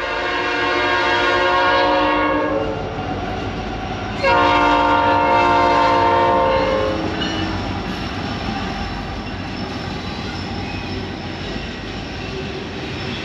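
Norfolk Southern freight train passing: the locomotive's multi-chime air horn sounds one blast that ends about two and a half seconds in, then a second long blast from about four to seven seconds. After that the cars roll by with a steady rumble and rail clatter.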